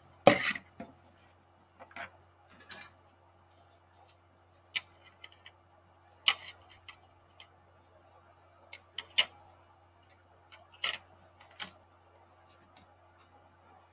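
Wooden popsicle sticks being handled and set into a cup: light, irregular clicks and taps, a few seconds apart, over a faint steady hum.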